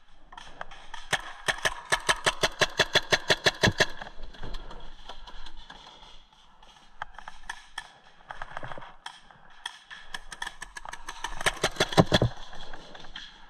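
Paintball markers firing rapid strings of shots, about eight a second: one burst of roughly three seconds starting about a second in, scattered single shots, then a second burst near the end.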